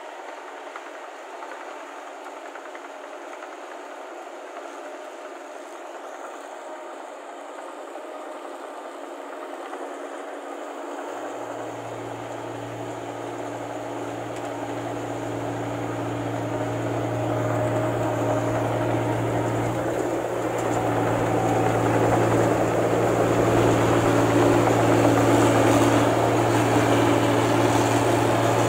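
New Holland combine harvester running while cutting and threshing rice, a steady mechanical rattle and drone of engine, tracks and threshing gear. It grows louder throughout, and a low steady engine hum comes in about a third of the way through.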